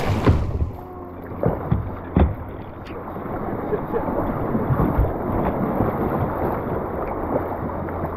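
Fast, choppy river water rushing and splashing around a kayak's hull, with a few sharp splashes in the first couple of seconds and the rushing growing steadier and louder after that.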